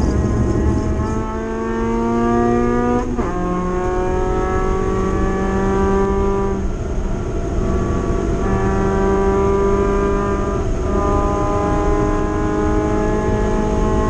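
Spec MX-5 race car's 2.0-litre four-cylinder engine heard from inside the cockpit under hard acceleration on track. Its pitch climbs steadily and drops sharply at an upshift about three seconds in and again near eleven seconds, then climbs again.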